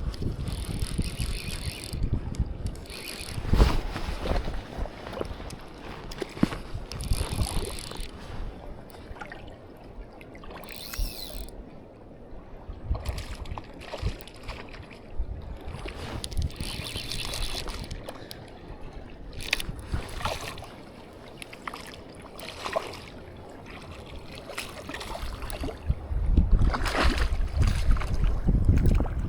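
Playing and landing a bass on a fly rod in the shallows: irregular mechanical clicking and rattling from the tackle, mixed with water sloshing. Wind buffets the microphone, loudest in the last few seconds.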